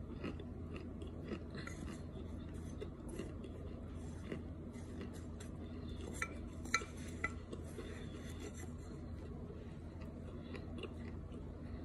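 Metal spoon scraping and clinking against a glass dish while scooping crumbles of cornstarch, in scattered small clicks and scrapes. Three sharp ringing clinks come a little past the middle and are the loudest.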